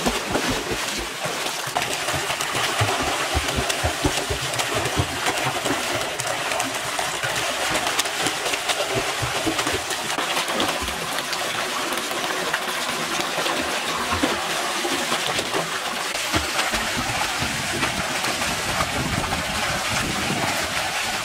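Pool water splashing and churning as two children swim and kick, over the steady spatter of a thin stream of water falling into the pool.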